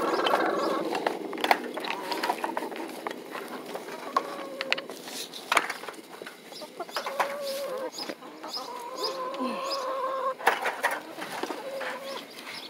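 Hungry backyard hens clucking and making long, drawn-out calls, with scattered sharp clicks.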